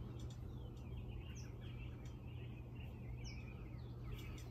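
Faint small birds chirping and twittering in the background, with two sharper falling whistles, over a steady low hum.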